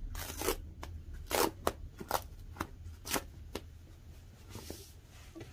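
Packaging rustling and scraping as a tablet in a white protective wrap is slid out of its cardboard box: a string of sharp crackles and taps over the first three and a half seconds, then a softer rustle near the end.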